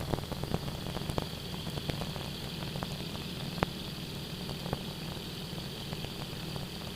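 Airplane cockpit audio through the intercom: a steady low engine hum under a hiss, with scattered static crackles.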